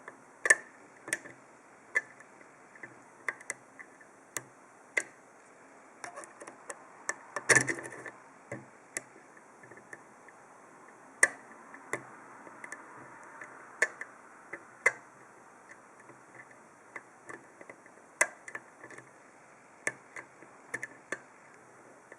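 Irregular sharp metallic clicks and taps from a flag pick working the pins of an Abus D10 dimple lock cylinder held under tension with a Z-wrench, as the pins are set one at a time. A small cluster of clicks about seven to eight seconds in is the loudest.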